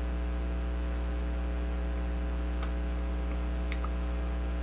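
Steady low electrical hum with a stack of overtones, the mains hum of the recording setup. A few faint clicks come in the second half.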